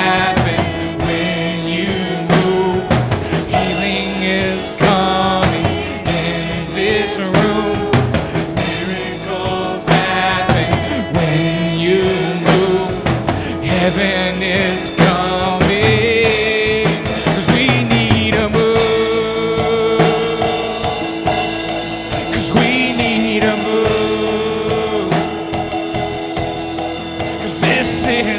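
Live worship band playing a song: acoustic and electric guitars with a drum kit keeping a steady beat, and voices singing over it.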